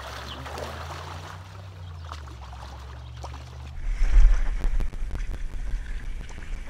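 Creek water splashing and sloshing as a hooked brown trout is played and brought to a landing net. About four seconds in it turns suddenly louder and closer, with a heavy low rumble and small splashes.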